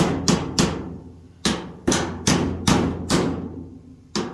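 Hammer blows on the dryer, knocking a misaligned part into place. There are about nine sharp strikes, each ringing briefly: three quick ones, a short pause about a second in, then a steadier run of blows and one more near the end.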